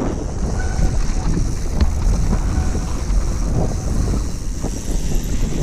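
Mountain bike descending a dry dirt trail: wind buffeting the microphone over a steady low rumble of tyres and frame, with scattered knocks and rattles from the bike.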